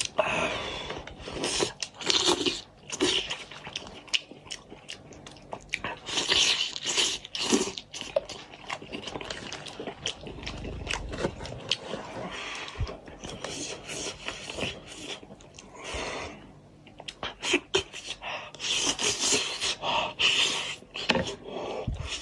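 A person chewing and biting into a spicy goat's head, with irregular crunching and clicking eating sounds in short bursts.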